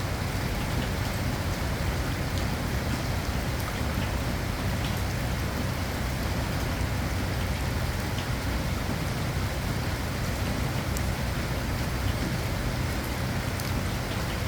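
Steady rain, with scattered individual drops ticking sharply over a constant hiss and a low steady rumble.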